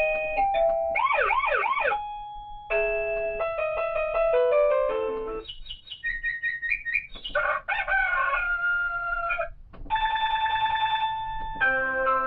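WSDCAM KSDB03 wireless doorbell receiver's loudspeaker playing one ringtone after another as its tunes are stepped through: electronic chimes, warbling tones and short note runs, each cut off after a second or two as the next begins. A fast, steady trill plays near the end before another tune starts.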